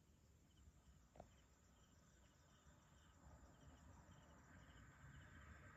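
Near silence of a warm night outdoors: faint insects chirping in short pulses about twice a second, with one soft click about a second in and a faint hiss that grows near the end. No thunder is heard.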